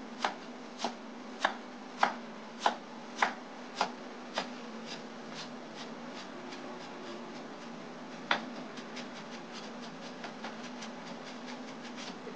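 Kitchen knife chopping ginger on a wooden cutting board as it is minced fine. Sharp knocks come about every half second for the first four seconds or so, then lighter, quicker taps, with one harder knock about two-thirds of the way through, over a faint steady hum.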